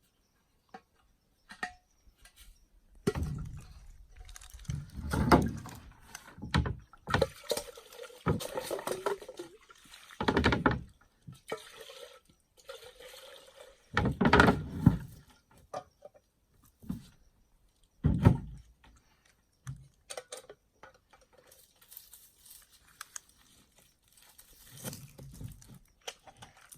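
A drink being poured into cups, with scattered clinks and a few heavy knocks from handling the pot and cups.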